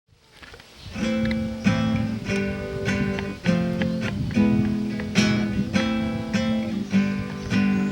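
Acoustic guitar strumming chords in a steady rhythm, a stroke about every half second, fading in during the first second.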